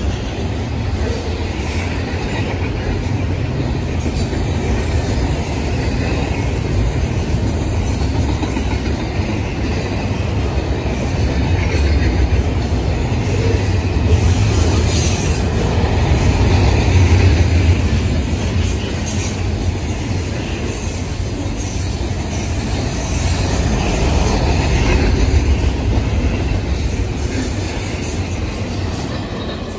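Double-stack intermodal freight train's container well cars rolling past: a steady rumble and clatter of steel wheels on the rail. The sound fades near the end as the last car goes by.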